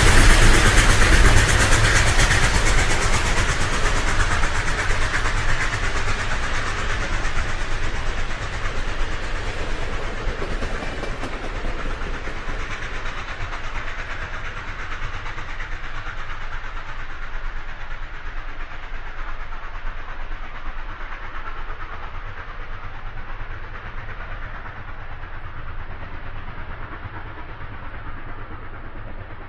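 Loud, steady rushing noise over a low rumble that fades slowly and evenly, its high end dying away first, as of a large source moving off into the distance.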